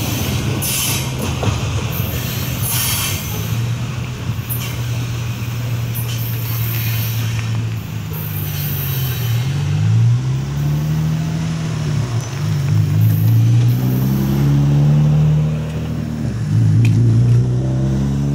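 A freight train of covered hoppers rolling away from a grade crossing, with scattered high wheel squeal over a steady low engine hum. From about halfway through, the engine pitch rises and falls as road vehicles pull away over the crossing.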